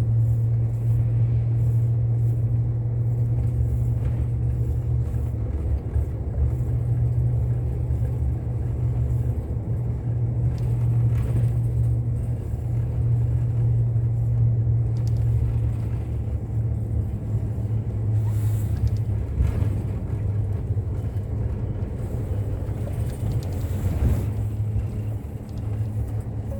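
Bus running along the road: a steady low rumble of engine and road noise.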